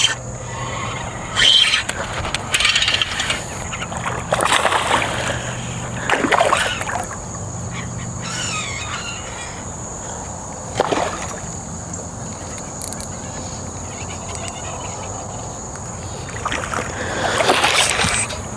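Hooked bass splashing at the water's surface in several short bursts while being played in on the line.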